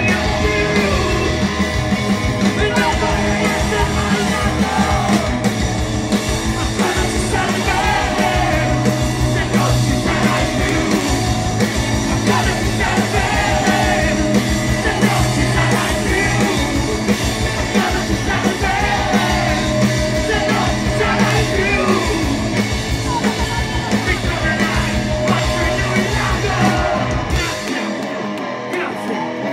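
Live rock band playing at full volume: drums, bass and electric guitars under a singer's vocal. About 27 seconds in, the drums and bass stop and the sound thins out.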